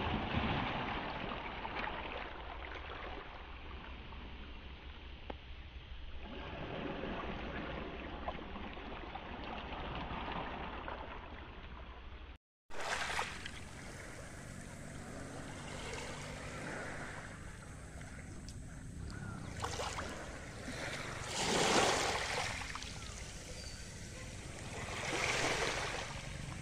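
Small waves washing onto a pebble beach and draining back through the stones, rising and falling in gentle surges. After a short break about halfway, the water laps closer, with two louder washes near the end.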